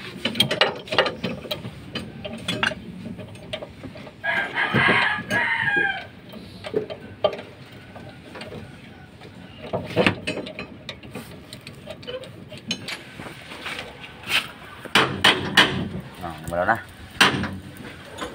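Ratchet wrench clicking in short runs and metal tools knocking on the bolts of a seized brake wheel cylinder. A rooster crows about four seconds in and again near the end.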